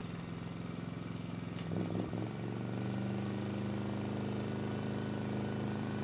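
MAXPEEDINGRODS MXR5500 inverter generator engine running steadily. About two seconds in it speeds up and runs louder as a 1500-watt electrical load comes on, then holds at the higher speed.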